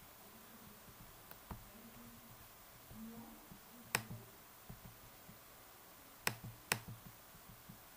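A few sharp computer mouse clicks in a quiet room: a faint one about a second and a half in, a louder one about four seconds in, and two close together a little after six seconds.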